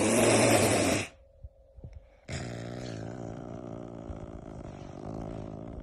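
Caracal vocalising: a loud, rough call that cuts off about a second in, then after a short gap with a few faint clicks, a quieter, steady rough call starts and runs on.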